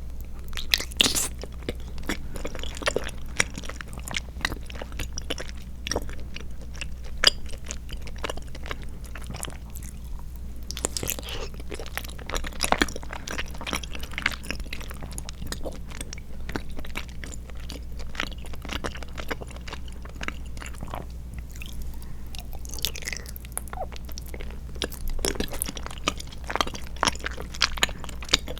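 Close-miked chewing of soft, gummy tapioca pearls and milk jelly: a continuous run of short wet clicks and smacks, with a few sharper bites standing out.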